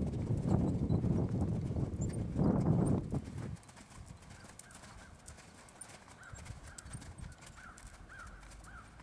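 Hoofbeats of a Holsteiner/Thoroughbred cross mare cantering on sand arena footing, heavy and close for the first three and a half seconds, then suddenly much quieter.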